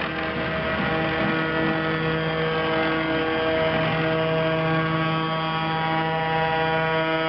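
Tractor diesel engines running at a steady pitch as the tractors drive past, with a large John Deere tractor pulling a loaded-looking trailer coming closest.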